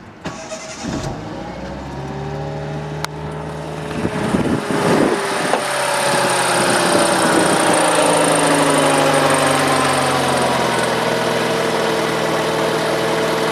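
Fiat Cinquecento engine starting, revving briefly, then idling with its pitch slowly settling lower. The exhaust runs quietly, a rust hole in its midsection freshly sealed with fire gum: the leak sounds cured.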